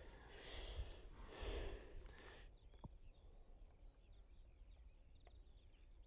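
Rustling noise with a low rumble for about two seconds, then an abrupt change to quiet open-air background with faint, distant bird chirps.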